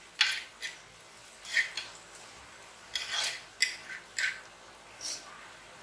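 A steel spoon scraping and knocking against a pan while stirring sliced onions and chillies frying in oil: about nine short, irregular scrapes.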